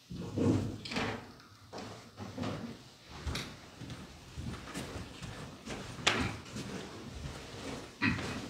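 Scattered knocks, thumps and rustles of people moving and handling things in a room, with a thump about half a second in and sharp clicks about three and six seconds in.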